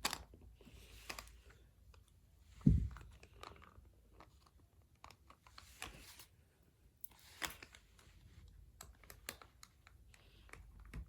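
Hard plastic parts of a Buzz Lightyear toy's helmet mechanism clicking, scraping and crunching as they are worked loose by hand. There are scattered irregular clicks, and one louder thud about three seconds in.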